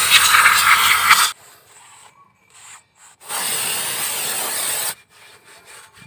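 Aerosol brake cleaner sprayed onto a rear drum brake's shoes and backing plate: a loud, steady hiss that cuts off about a second in. After a pause, a second, quieter steady hiss of about a second and a half starts and stops abruptly.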